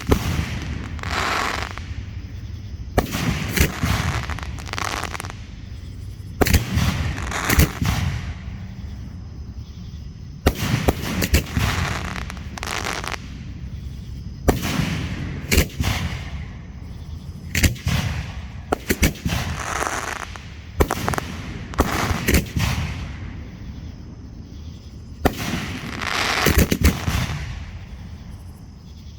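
Hand-fired fireworks display going off: a long run of loud bangs, some in quick clusters, with crackling after several of them.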